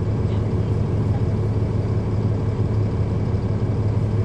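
Cummins ISL9 inline-six diesel engine of a 2010 NABI 40-SFW transit bus running steadily, heard from inside the passenger cabin as a continuous low hum.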